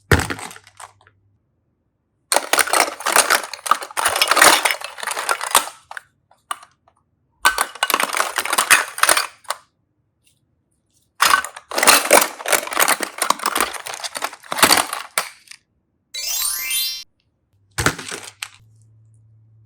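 Foil and plastic wrapping of Kinder Surprise eggs crinkling and crackling as they are unwrapped, in three long bursts of close, crisp rustling with sharp clicks. Near the end comes a short pitched tone, then a single click.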